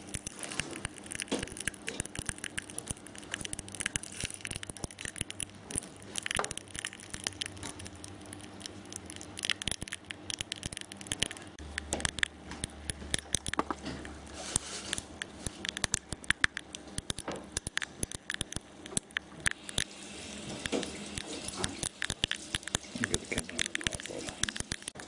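Wetted orange silica gel beads crackling: a dense, irregular run of tiny clicks and pops as the beads take up water, warm and crack.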